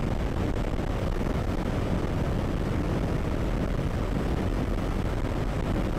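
Steady rush of wind and road noise with the low hum of a Bajaj Dominar 400's single-cylinder engine, cruising at about 100 km/h behind a windshield.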